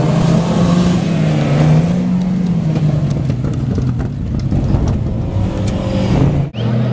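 Engine of an off-road race vehicle running and revving on a dirt course, its pitch rising and falling. It breaks off sharply near the end, and a lower engine note takes over.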